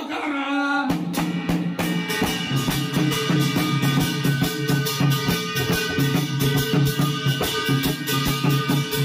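Garhwali jagar folk music on dhol and damau drums: a fast, steady drumbeat with sustained pitched tones over it, starting suddenly about a second in after a brief voice.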